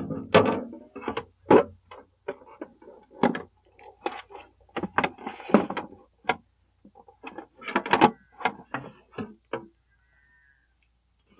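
Hard plastic battery case and sealed lead-acid batteries being handled and fitted together: an irregular run of knocks, clicks and rattles, dying away near the end.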